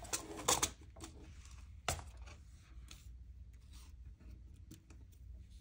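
Light clicks and taps of small craft pieces and tools handled on a worktable: a few sharper clicks in the first two seconds, then faint scattered ticks.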